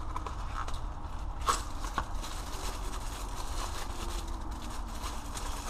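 Plastic packaging crinkling and rustling as new brake pads are taken out of their box and bag, with a couple of sharper knocks about a second and a half and two seconds in, over a steady low hum.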